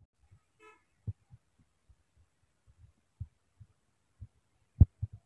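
Scattered dull low thumps, about six of them, the loudest a little before the end. A brief distant vehicle horn toots once under a second in.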